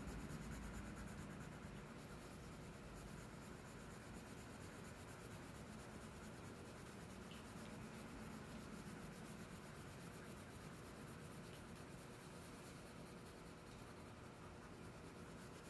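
Faint, steady scratching of a wax crayon colouring in an area on paper.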